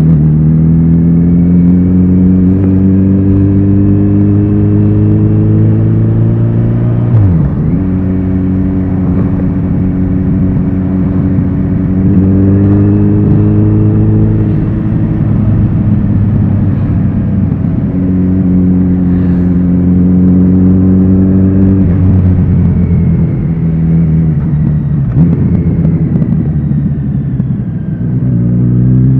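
Kawasaki Z900RS inline-four engine and exhaust under way, its pitch climbing and falling with the throttle through the gears. There is a quick sharp drop about seven seconds in, and the engine winds down near the end before rising again.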